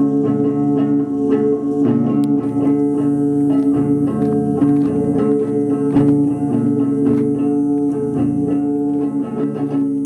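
Instrumental background music led by plucked guitar, with a steady run of picked notes over held tones.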